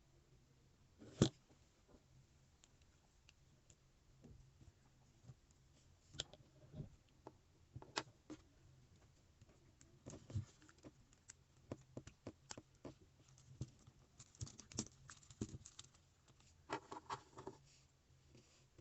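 Plastic Lego Technic parts clicking and rattling as they are handled and pressed together. One sharp click about a second in, then scattered clicks, then a busy run of small clicks and rattles in the second half.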